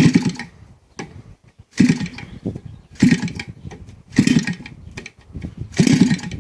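CRRC Pro GF45i single-cylinder two-stroke gas engine being started: five short bursts, each catching or turning over for about half a second and then stopping, before it settles into running.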